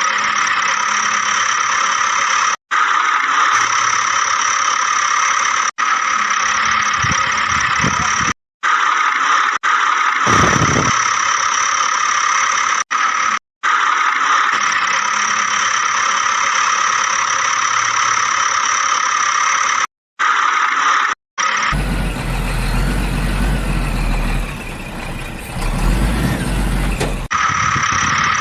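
Steady high-pitched whine of a small toy vehicle's motor and gears, broken off by several abrupt cuts; near the end a lower, rumbling sound takes over for a few seconds.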